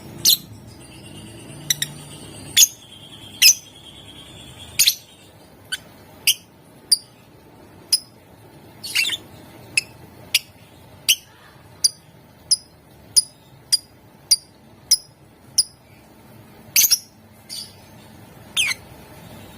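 Lovebird giving short, sharp, high-pitched calls one at a time, about one every half second to second, with an evenly paced run in the middle and a few longer, rougher calls near the end.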